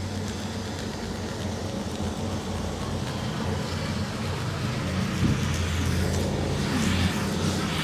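Street traffic noise with a vehicle engine running close by, a steady low hum.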